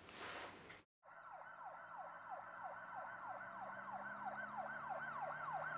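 Emergency vehicle siren in a fast yelp, its pitch swinging down and up about three to four times a second. It starts about a second in and grows steadily louder, as if approaching.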